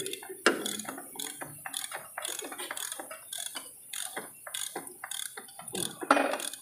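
Socket ratchet wrench clicking on a truck's engine/transmission mount nut, the pawl ratcheting in an irregular run of clicks, several a second, as the handle is swung back and forth.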